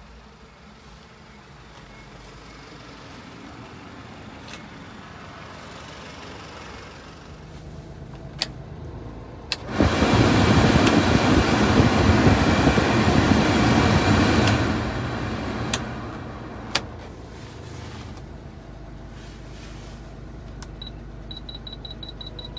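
A 1999 Suzuki Carry's cab heater blower fan is switched on with a click and runs at high speed as a loud, steady rush of air. After a few seconds it is clicked down to lower speeds. Near the end a rapid series of short electronic beeps starts.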